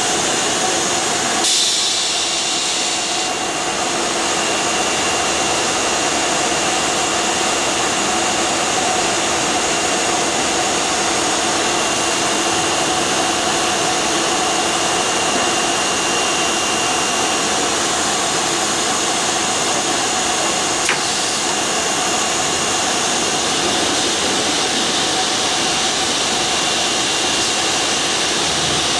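Computer panel saw running: a steady whooshing machine noise with a faint high whine. A short burst of hiss comes about two seconds in, and a single sharp click about twenty-one seconds in.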